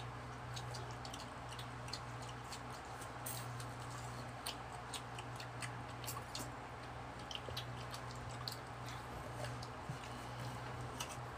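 Wet chewing, smacking and slurping of people eating ripe mango flesh, heard as many small irregular clicks and squishes over a steady low hum.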